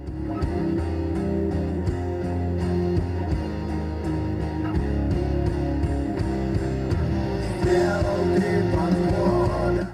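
Rock music with guitar and a steady beat, and a singing voice coming in louder near the end.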